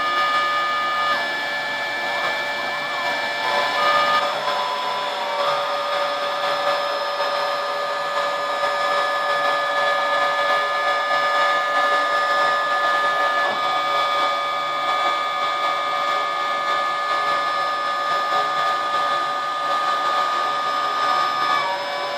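Homebuilt CNC router running a V-bit rastering cut in wood: a steady motor whine with shrill tones whose pitch steps down and back up a few times as the machine's moves change.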